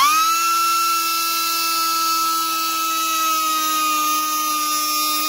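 High-speed rotary tool with a small cut-off wheel running at full speed with a steady high whine while it grinds a rusty steel exhaust manifold stud, throwing sparks.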